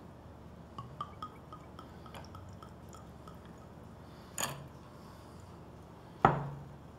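Blue curaçao poured from a bottle over ice in a glass snifter: faint glugging drips into the glass, a short click midway, and a sharp knock near the end.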